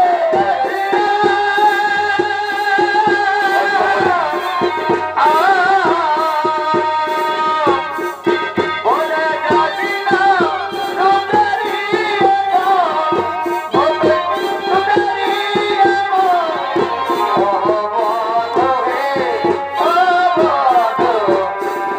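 Live Purulia Chhau dance music through horn loudspeakers: a sustained melody that holds long notes and bends in pitch, over rapid, dense folk drumming.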